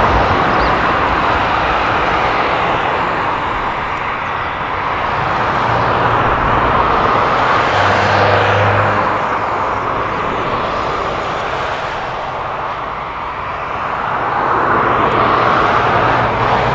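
Light single-engine propeller aircraft on approach and landing: a steady rushing engine drone that swells and fades slowly a couple of times.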